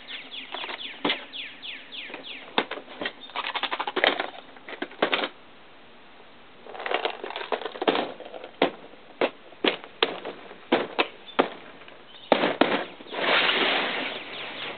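Hard plastic tackle boxes clattering and clicking as lures and gear are rummaged through and the box is closed up. Near the end comes a longer scraping stretch as a clear plastic box is pushed across the table.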